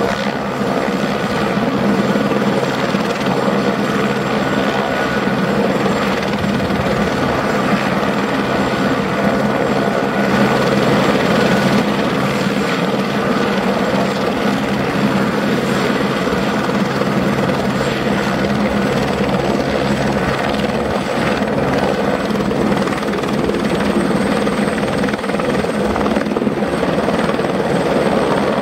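Airbus H125 (AS350 AStar) single-engine helicopter running with its rotors turning: the steady whine of its Safran Arriel 2D turboshaft mixed with main-rotor blade noise. Near the end it lifts off into a low hover.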